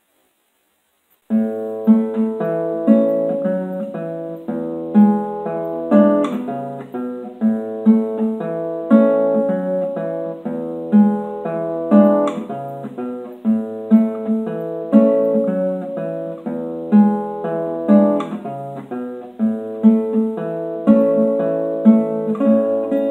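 Solo classical guitar starting about a second in, playing an Argentine gato dance. It mixes plucked chords and bass notes with strongly accented strokes about once a second.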